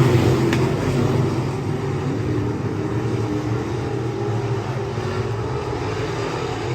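Race car engine running at speed, a steady drone that eases off a little after the first second.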